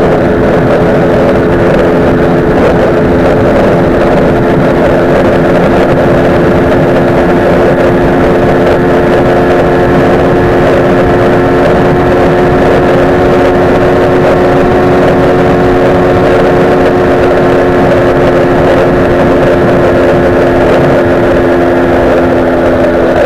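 Honda CG 125 Fan's single-cylinder four-stroke engine held wide open at top speed, about 140 km/h, a steady high-revving drone that stays at one pitch. Heavy wind rushes over the microphone. The bike is stock but runs without its air filter.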